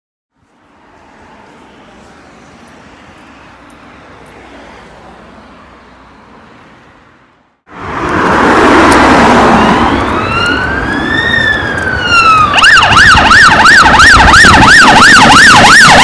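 Faint steady road noise, then loud traffic noise and an emergency vehicle's siren. The siren sweeps slowly up and down once in a wail, then switches to a fast yelp of about three up-down sweeps a second.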